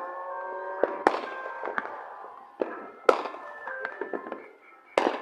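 Fireworks going off: a string of sharp bangs and crackles, the loudest about three and five seconds in. Steady tones like music run underneath.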